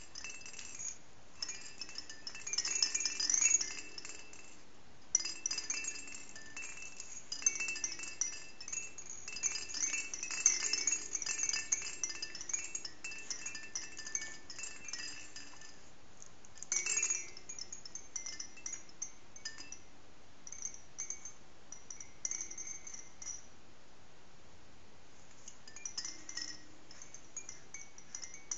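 Hanging rattle toys on a baby's play gym jingling and clinking with a chime-like ring as the baby bats them, in irregular bursts that come thick for the first half and more sparsely later.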